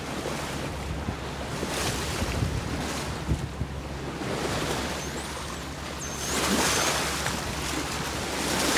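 Seawater rushing and splashing past a sailboat's hull at sea, with wind buffeting the microphone over a low steady hum. A few faint, thin high whistles that rise and fall come through about five and six seconds in.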